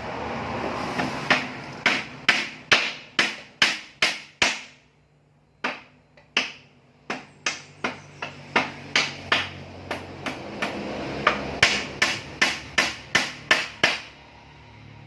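Hammering: two long runs of sharp hammer blows, about two to three a second, with a short break about five seconds in.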